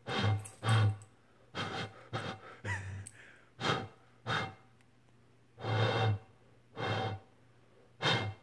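A person making short breathy hissing or blowing sounds, about ten of them and often in pairs, with short pauses between.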